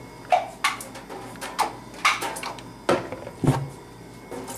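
Irregular clicks and knocks, about half a dozen sharp ones, as the coffee maker's thermal carafe is handled and lifted out.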